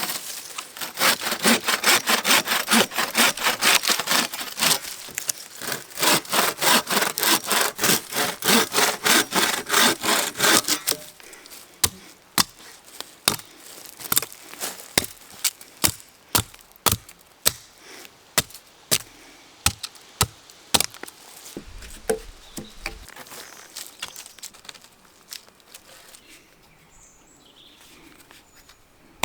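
Hand saw cutting through wood in quick, rhythmic back-and-forth strokes for about ten seconds. The strokes then give way to a slower run of sharp, separate ticks that die away.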